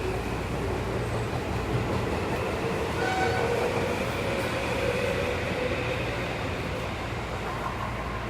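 Tokyo Metro 7000-series train getting under way, its motors giving a faint whine that slowly rises in pitch over the first few seconds, over the steady rumble of the running train as heard inside the car.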